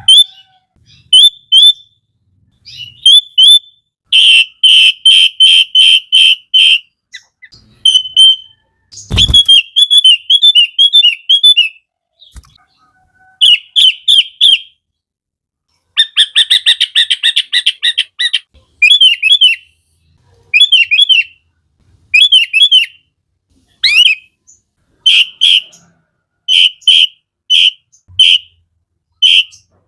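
Sooty-headed bulbul singing: bursts of quick repeated high notes and fast chattering trills, broken by short pauses. A dull thump sounds once about nine seconds in.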